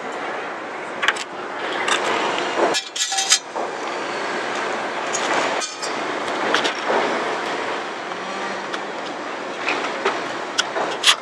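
Steady outdoor rushing noise with a few short, light clinks of a utensil against a stainless-steel mixing bowl.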